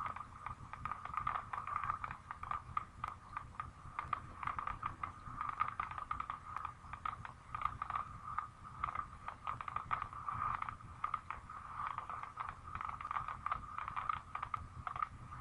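Fireworks crackling and popping in a rapid, continuous barrage, played back from a camcorder and picked up again by a webcam, so it sounds thin and tinny.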